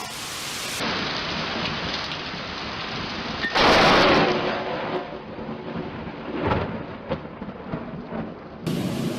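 Thunderstorm: steady rain hiss with thunder, a loud sudden thunderclap about three and a half seconds in, the loudest moment, trailing off over the next second.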